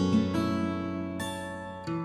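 Background music on acoustic guitar: a few plucked notes, each starting sharply and ringing away.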